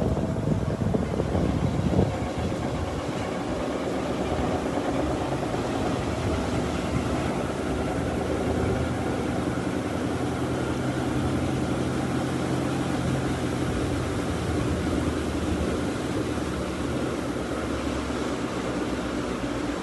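Electrolux LTD15 top-loading washing machine running in its rinse stage: a steady mechanical hum, with a few louder knocks in the first two seconds and a low tone that comes up in the middle.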